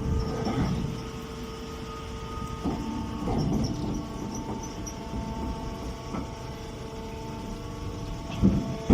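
A mini round hay baler running with a steady mechanical hum and rumble, with a few soft knocks and one sharp, loud thump near the end.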